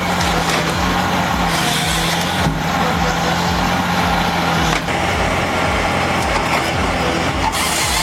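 Heavy forestry machine running under load, with wood cracking and splintering.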